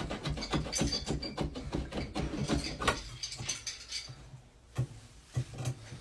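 Scraping, rubbing and clicking of a metal pipe fitting being worked onto a copper pipe inside an open wall cavity, busiest for the first three seconds, then a few scattered clicks.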